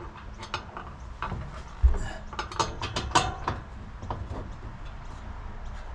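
Irregular clicks and knocks from a parcel shelf and its mounting bolts being levered and fitted into place, with a dull thump a little under two seconds in and a cluster of sharp clicks just after.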